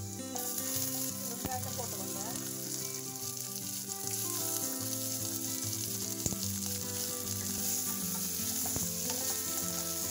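Tempering spices and chana dal frying in hot oil in a small stainless steel saucepan, with chopped onion added. The sizzle jumps up sharply just after the start as ingredients hit the oil and stays strong, with a spoon stirring and a few knocks against the pan.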